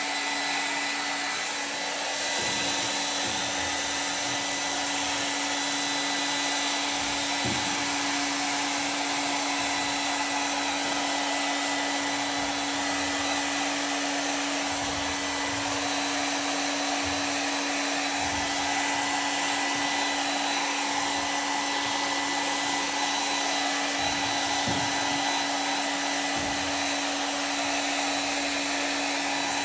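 Heat gun running steadily: a constant fan hum with a thin whine, blowing hot air to soften adhesive so a stuck part can be worked loose.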